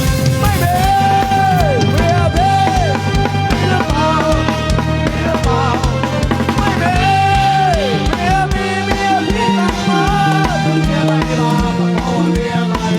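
Thai brass band (trae wong) playing upbeat music: a driving bass-drum beat of about three to four thuds a second under a bass line and a melody with long held notes that slide down in pitch.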